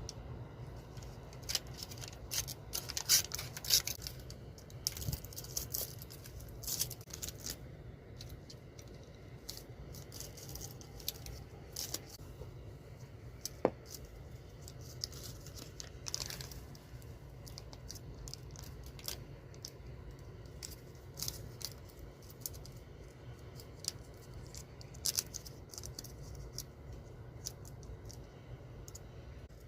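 Scattered clicks, light scrapes and crinkling of small objects being handled, busiest in the first several seconds, over a low steady hum.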